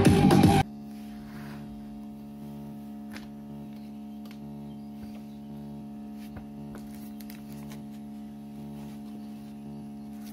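Music from a homemade Bluetooth speaker cuts off abruptly about half a second in, leaving a steady electrical hum with several pitched tones from the speaker's amplifier, broken by a few faint clicks.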